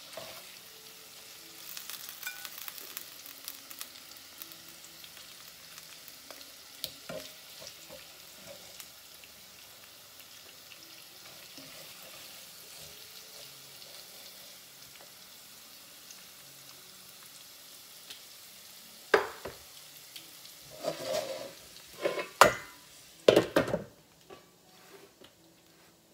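Pesto-coated zucchini noodles and chicken sizzling gently in a skillet, with faint scrapes and ticks as tongs lift them out. Near the end come several loud, sharp clatters of cookware and utensils.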